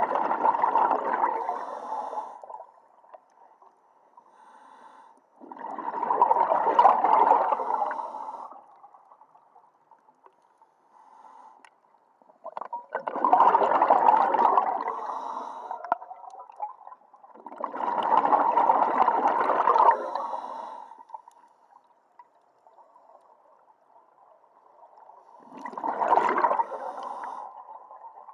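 Scuba diver breathing on a regulator: five bursts of exhaled bubbles, each two to three seconds long, about every five to seven seconds, with quiet gaps between for the inhalations.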